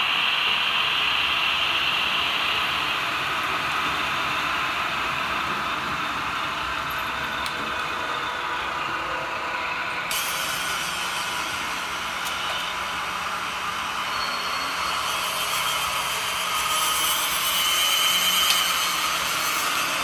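Märklin HO scale model trains running on three-rail track: a steady whir of small electric motors and wheels rolling on the rails. The sound turns brighter and hissier about halfway through.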